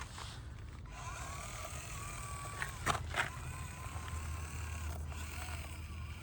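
Injora 050 66-turn brushed motor and gears of an Axial SCX24 Deadbolt micro RC crawler whining as it crawls, the pitch wavering up and down with the load. Two sharp knocks about three seconds in.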